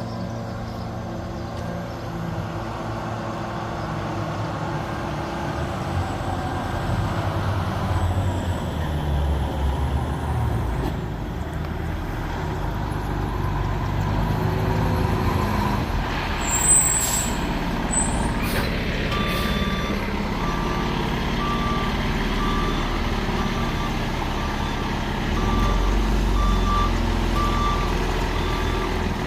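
Fire truck engine running as it manoeuvres, with a short loud hiss a little past halfway, then a back-up alarm beeping at an even pace, about once a second, as the truck reverses.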